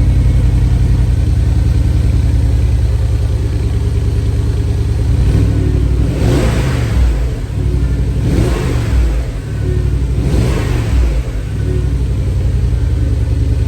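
Porsche Cayenne Turbo (958) twin-turbo V8 idling through its stock factory exhaust, then blipped three times, each rev rising and falling back to idle, about five, eight and ten seconds in.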